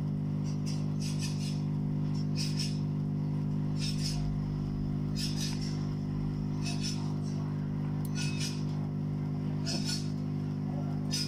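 Hot air rework station blowing on a phone circuit board to desolder it: a steady hum with short hissing pulses about every one and a half seconds.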